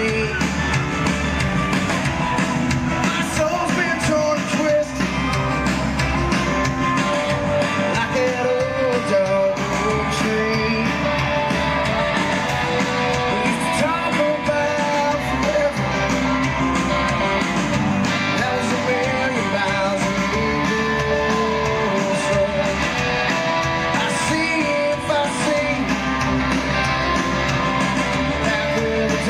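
Live rock band playing a song: electric guitars, drums and a sung lead vocal, heard from the crowd.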